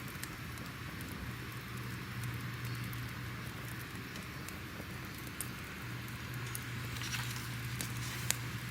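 Crackling fire: a steady soft hiss with scattered sharp pops and snaps, a few louder pops near the end.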